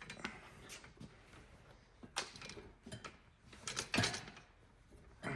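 Scattered knocks and scrapes of a dirt bike tire being worked onto its rim over a mousse bib, the loudest knock about four seconds in.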